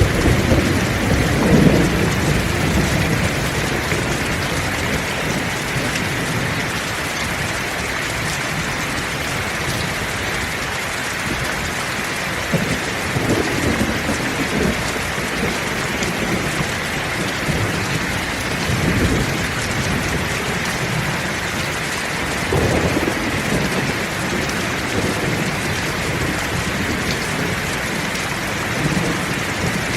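Heavy rain falling steadily, with low thunder rumbling in swells: strongest at the start, then again several times through the downpour.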